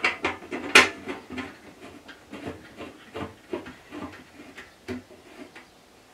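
Irregular small clicks and taps from a knob being screwed up by hand to secure the lower wheel door of a Record Power BS250 bandsaw, with one louder click about a second in; the clicks thin out near the end.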